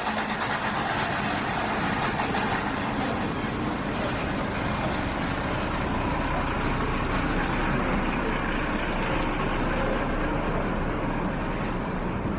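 Steady city street traffic noise, motor vehicles running along the road.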